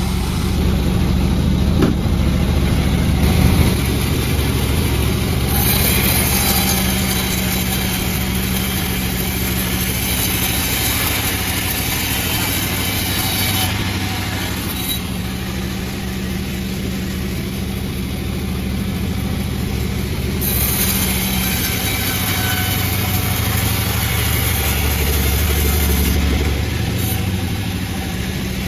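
Panda36 chainsaw engine running steadily, with a high hiss joining it twice, for about eight seconds starting some six seconds in and for about six seconds starting some twenty seconds in.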